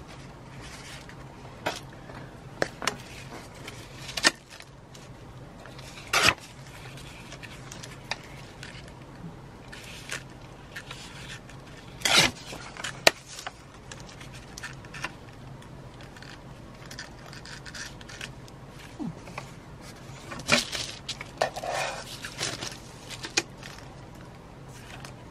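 Paper being handled and torn into strips against a plastic tear-guide ruler: scattered short rips and rustles with quiet gaps between.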